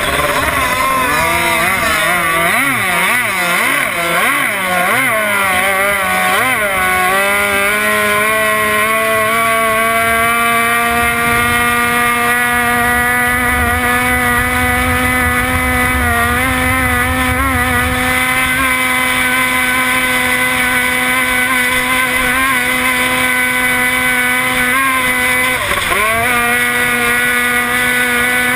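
Race boat's outboard engine at racing speed, heard from on board: its pitch wavers rapidly up and down for the first several seconds, then settles into a steady high note that climbs slowly, dipping briefly twice.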